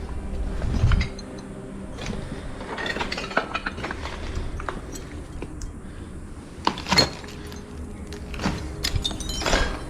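Scattered clinks, knocks and scrapes of loose debris, with a louder knock about seven seconds in: something falling.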